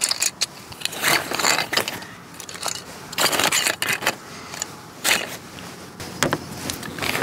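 Fabric hunting backpack rustling and scraping in short irregular bursts as gear is stuffed into its top opening and handled.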